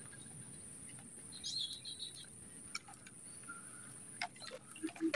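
Quiet outdoor swamp ambience: a bird gives a quick run of chirps about one and a half seconds in, over a steady high-pitched hiss, with a few soft clicks later on.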